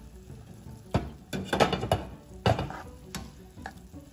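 Black plastic spatula stirring and scraping softened diced vegetables around a nonstick frying pan. There is a run of quick scraping and knocking strokes from about a second in to about three seconds in.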